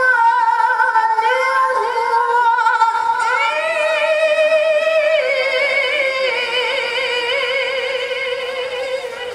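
A woman's solo voice through a microphone, chanting in the ornamented, melismatic style of a qori'ah's Qur'an recitation with heavy vibrato. About three seconds in she climbs to a higher note and holds it, wavering, until she stops near the end.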